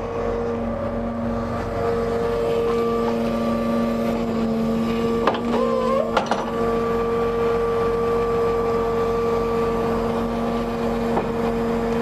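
Volumetric concrete mixer truck running with a steady mechanical hum from its engine and hydraulics while the mixing auger is lowered on its boom. About five to six seconds in, two clunks with a short wavering squeal between them.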